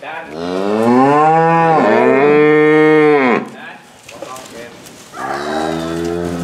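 Young cattle mooing loudly: a long moo of about three seconds that rises and falls in pitch, dipping once midway, then another moo starting about five seconds in.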